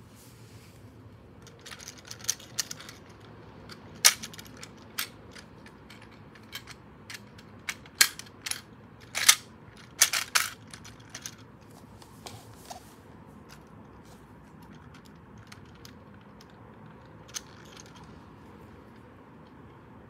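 Sharp plastic clicks and clatter of toy shinkansen train cars being handled and coupled together on plastic track. There is a dense run of loud clicks from about two to eleven seconds in, then only a few scattered clicks.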